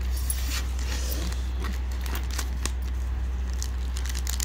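Thin plastic chocolate-box tray and its wrapping crinkling and clicking as they are handled, in irregular small crackles over a steady low hum.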